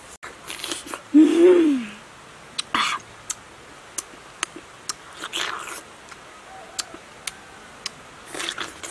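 A person eating soft, juicy red fruit: a short hummed 'mmm' that rises and falls in pitch about a second in, then wet slurping bites and sharp lip-smacking clicks scattered through the rest.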